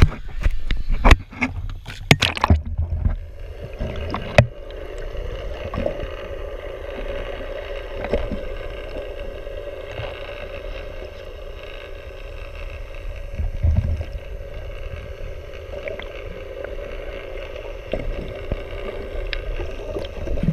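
Splashing and knocking as the camera goes into the sea, then from about three seconds in a steady underwater drone of the idling boat engine heard through the water, over a muffled low rumble.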